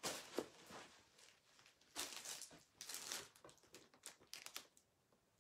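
Faint rustling and a few light knocks from a person moving about the room, strongest about two to three seconds in.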